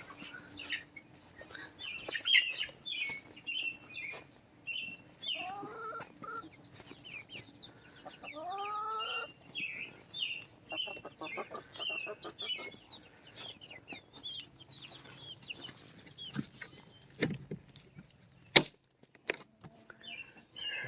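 Chickens at a backyard coop calling and clucking, with two drawn-out calls about six and eight and a half seconds in, over a steady run of short high chirps. A sharp click comes near the end.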